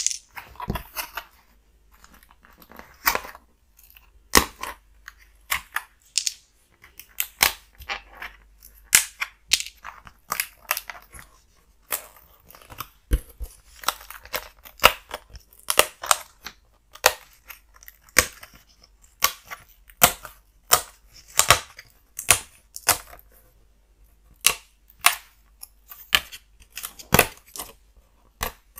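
Pre-cut pieces being pressed out of a printed puzzle-kit board, each one coming free with a sharp snap. The snaps come irregularly, about one or two a second.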